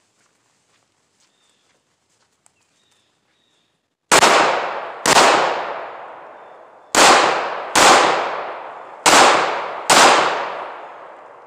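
Springfield Armory XD Tactical .45 ACP pistol firing six shots over about six seconds, starting about four seconds in, each shot ringing out with a long fading echo.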